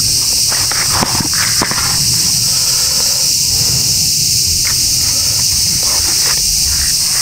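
Cicadas droning steadily in summer woodland, one unbroken high buzz, with a few light taps and rustles from a cardboard matchbox case being handled.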